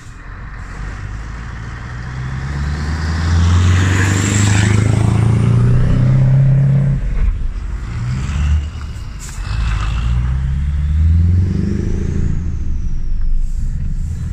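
Scania 143M's V8 diesel pulling hard, its deep note climbing in pitch, then dropping at gear changes about seven and eight and a half seconds in before climbing again. A high whistle rises over it around four seconds in.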